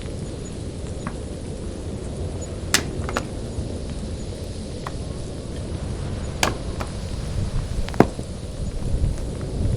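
A few sharp knocks at irregular intervals, several seconds apart, over a steady low rumble.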